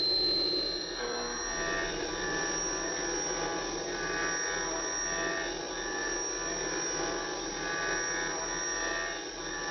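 Vertical CNC milling machine running, most likely cutting: a steady high whine over a shifting mechanical noise.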